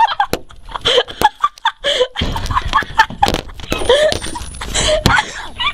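People laughing hard in short bursts, with a low rumble of wind or handling noise on the microphone through the middle.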